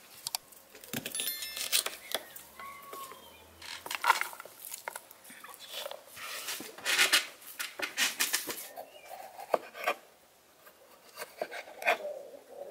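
Kitchen knife slicing onion and red bell pepper on a wooden cutting board: irregular crisp cuts and taps of the blade on the board, with a brief pause near the end.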